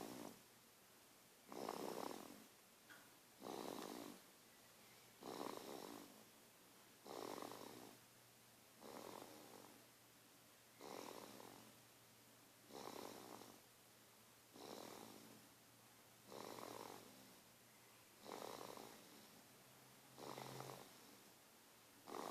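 A baby snoring softly: about twelve short snores in a steady rhythm, one roughly every two seconds.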